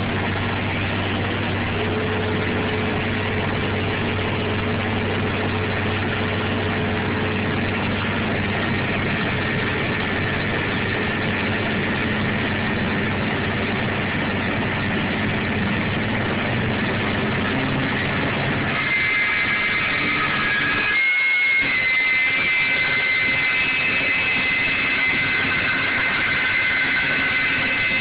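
CNC machine running steadily with a low hum, changing about 19 seconds in to a higher steady whine.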